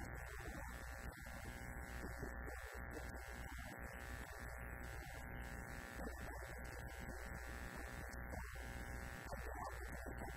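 A steady electrical buzz with a low hum underneath, unchanging throughout, with a man's voice faint beneath it.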